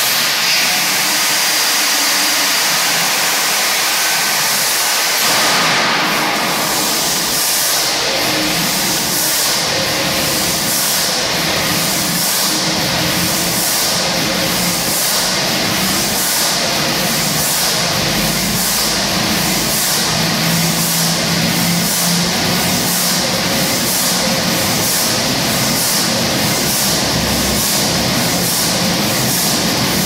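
Burmeister & Wain DM884WS-150 eight-cylinder diesel engine starting up. A loud hiss, then from about five seconds in a slow, regular beat, a little over one stroke a second and gradually quickening, over a low rumble.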